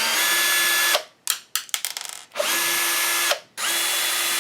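Cordless drill-driver running in three short bursts of about a second each, a steady motor whine, backing out screws. Between the first and second bursts come a quick series of clicks and rattles.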